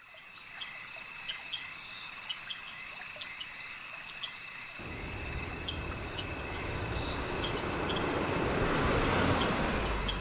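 Crickets chirping steadily. From about five seconds in, an approaching car's engine and tyre noise grows louder until it cuts off suddenly near the end.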